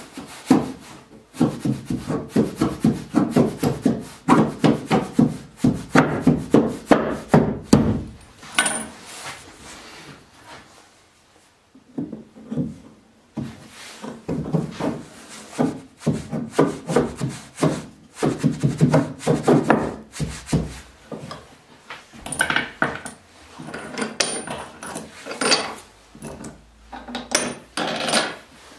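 Pine clamp bars knocking and rubbing against wood and threaded steel rods as they are slid into place over a glued-up panel: a run of rapid knocks and scrapes, a lull, then more knocks with a few sharp metal clinks of washers going onto the rods near the end.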